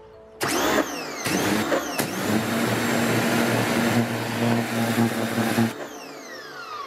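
Electric pressure washer kicking in as the trigger is pulled: the motor and pump hum steadily under the hiss of the water jet on wooden deck boards. After about five seconds it stops when the trigger is released, with a falling whine as the motor winds down.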